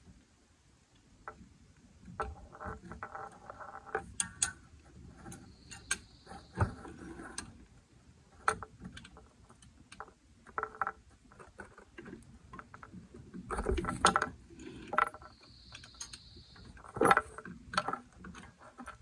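Pliers clinking and scraping on a drum brake's hold-down spring, cap and pin as they are pressed onto a brake shoe: irregular small metal clicks and rattles, with a denser burst of them about two-thirds of the way in.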